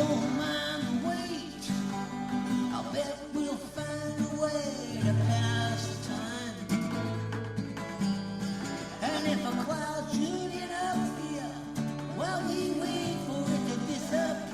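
Music: a song with a singing voice over guitar and steady bass notes.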